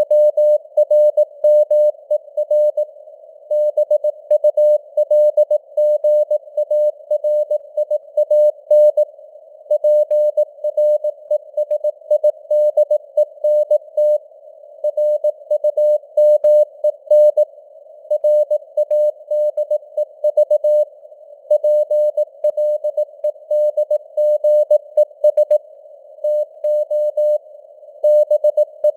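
Morse code at 18 words per minute: a single tone of about 600 Hz keyed on and off in dots and dashes, with short gaps between characters and words. It sits in a narrow band of simulated radio hiss, and the signal strength fades up and down (QSB).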